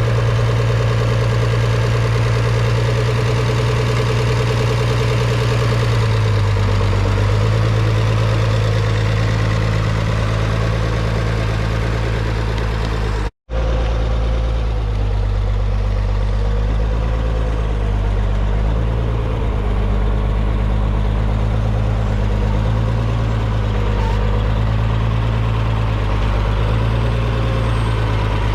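Farmall 806 tractor's six-cylinder diesel engine running steadily, its speed shifting slightly about six seconds in. The sound drops out completely for an instant around the middle.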